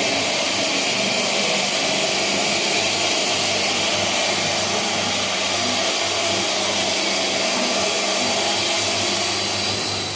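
Steady machine noise, an even rushing with a low hum under it, easing off slightly near the end.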